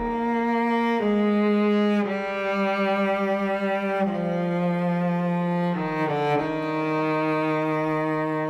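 Background music: slow, sustained held notes that change pitch every second or two, with a brief run of quick short notes about six seconds in.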